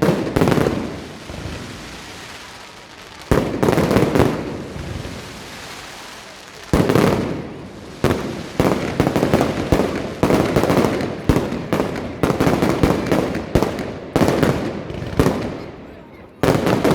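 Fireworks display: shells bursting with sharp bangs that echo and die away, a few spaced single bursts, then a fast run of many bangs in quick succession from about eight seconds in, and another burst near the end.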